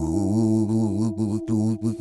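A low droning, chant-like sound whose pitch wavers up and down over a steady held note, breaking up in short gaps toward the end.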